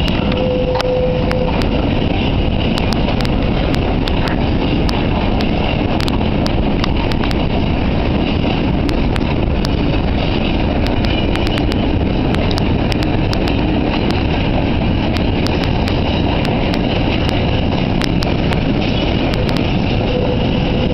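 Container freight train running through the yard, heard as a steady low rush of noise with scattered sharp clicks throughout. A brief steady whine comes about half a second in and again near the end.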